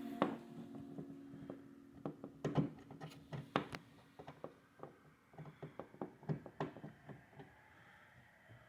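Irregular light clicks and knocks of hand work on a car's interior trim: screws, panels and a hand tool being handled.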